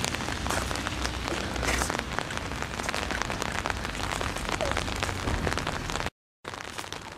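Steady rain hiss full of small crackling drops, with a low rumble underneath during the first part. The sound cuts out completely for a split second about six seconds in, then returns quieter.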